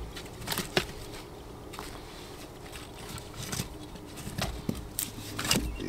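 Scattered light knocks and clicks of firewood and camp gear being handled while a campfire is being laid.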